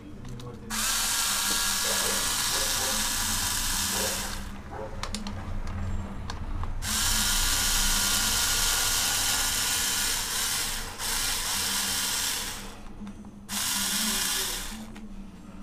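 Cordless screwdriver spinning a socket on the oil pan bolts, undoing them to take the sump off. The motor runs in three bursts, the middle one the longest, with short pauses and a few clicks between them as the socket is moved from bolt to bolt.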